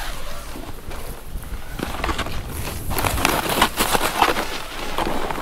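Snowboard landing and sliding through powder snow: a rough hissing scrape with crackly snow spray, getting louder and busier from about two seconds in, over a low wind rumble.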